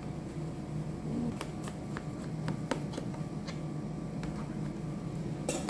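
Light clicks and scrapes of a metal knife and fork cutting baked puff pastry in a metal pie tin, with a sharper clink near the end, over a steady low hum.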